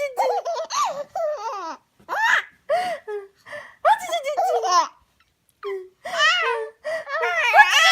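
A baby laughing in repeated high-pitched bursts, with a short pause about five seconds in.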